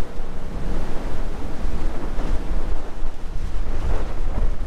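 Strong wind buffeting the microphone: a loud, gusty low rumble.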